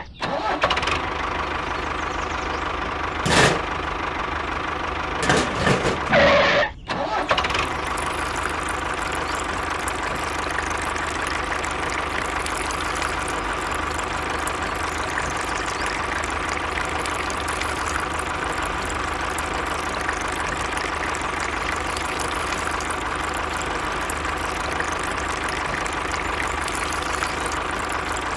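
Tractor engine running steadily, with a few brief louder bursts and a short break in the first seven seconds.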